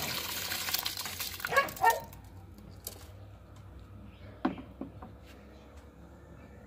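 Uncooked white rice poured into a pot of boiling peas and coconut milk, a rushing hiss that stops about two seconds in, ending with two short squeaky sounds. After that the pot boils quietly, with a few faint knocks.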